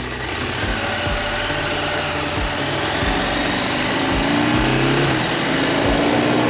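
KTM 890 Adventure R's parallel-twin engine running as the bike is ridden, its pitch climbing twice in the second half as it accelerates, with a short drop between the climbs.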